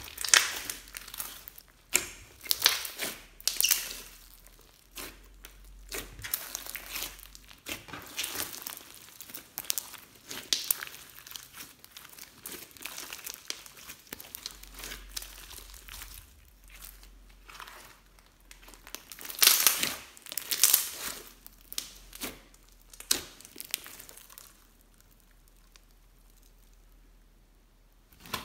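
Fluffy slime packed with foam beads being kneaded, stretched and squeezed by hand: irregular sticky crackles and pops, loudest in a cluster past the middle, and quieter near the end.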